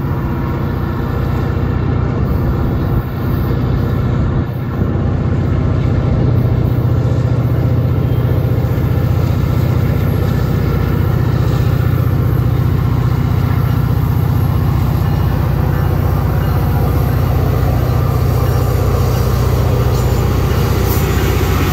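BNSF EMD SD40-2 diesel-electric locomotive's two-stroke diesel engine running with a steady low drone as it approaches under power pulling a long freight train, growing louder over the first few seconds.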